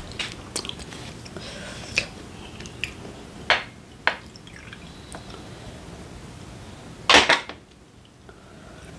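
Soju pouring from a green glass bottle into a small shot glass, with sharp clinks of glass and tableware. About seven seconds in, a loud clunk as the bottle is set down on the table.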